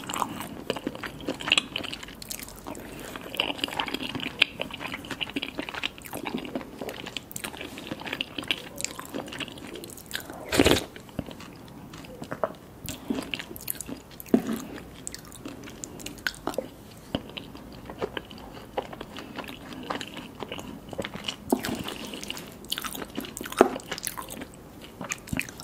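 Close-miked eating: biting and chewing with irregular wet smacks and crunches. One louder knock about ten seconds in.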